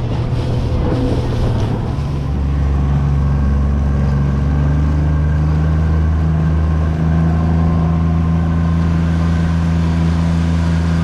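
2022 Mercury 40 hp four-stroke outboard running at steady cruising speed, its note settling into an even drone about two seconds in, with water rushing past the small boat's hull.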